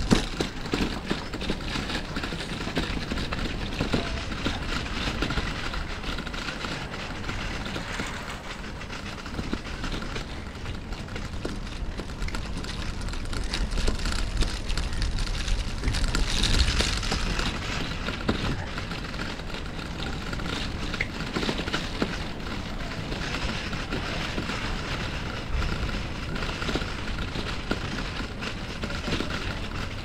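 Steady rolling and wind noise of a bicycle ride along a brick-paved street: tyre rumble over the bricks with street ambience, growing louder for a few seconds about halfway through.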